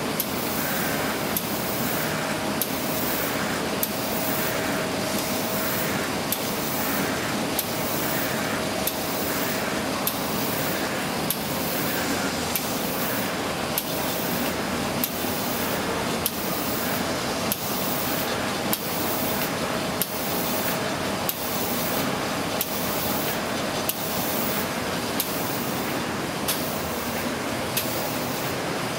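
Octans 126WS paper machine running: a steady mechanical hiss and hum with a sharp click repeating at an even pace.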